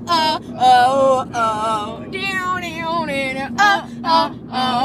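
Girls singing loudly in short phrases with held notes inside a moving car, over a low, steady road rumble.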